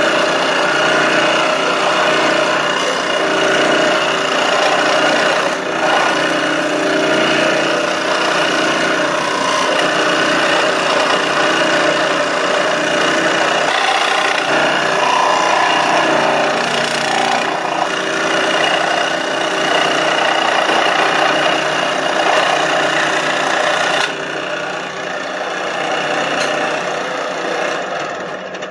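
Dremel scroll saw running, its reciprocating blade cutting a curved wooden hair-pin blank, with a steady motor hum under the rasp of the cut. About four seconds before the end the sound drops a little and loses its highs as the cut finishes and the blade runs free.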